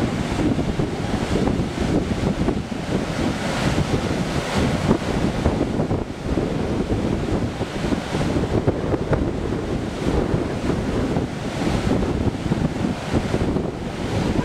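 Ocean surf rushing, with wind buffeting the microphone: a continuous, surging noise that swells and eases without a break.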